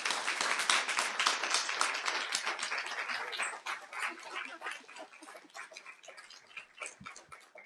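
Audience applauding, loud at first and then thinning out to scattered claps, with a couple of low knocks near the end.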